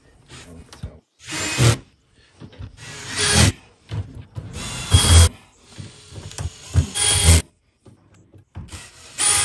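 Cordless drill-driver running in five short bursts, each under a second, spinning nuts back onto the studs of a blast cabinet's window frame.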